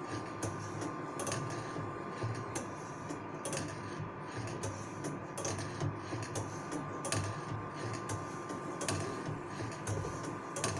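Semi-automatic two-tooth band saw setting machine running: a steady motor hum with a sharp click about once a second as it feeds the blade and sets the teeth.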